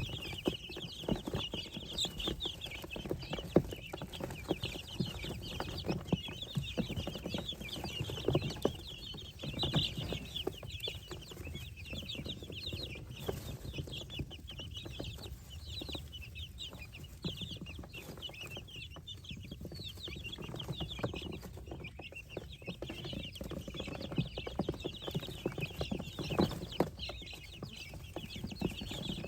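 A brood of baby poultry (chicks, guinea keets and ducklings) peeping continuously, many short high peeps overlapping, with frequent soft low knocks underneath.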